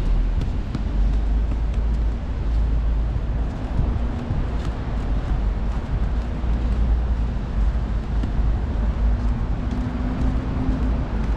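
City street traffic: vehicles running past in a continuous low rumble, with a faint engine hum that comes and goes.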